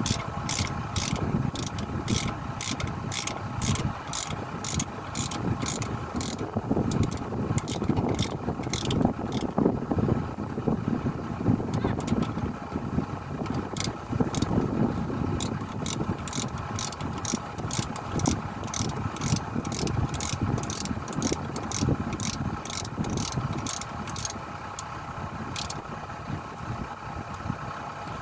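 Evenly spaced mechanical clicking, about two clicks a second, over the steady running of an engine. The clicking stops for several seconds in the middle, then resumes.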